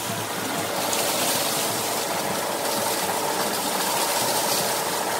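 Roller chain drive of a homemade water wheel running steadily over its sprockets: a continuous mechanical clatter, mixed with the rush of water. The chain is freshly greased but does not sit down fully in the sprocket teeth, which the builder thinks causes drag.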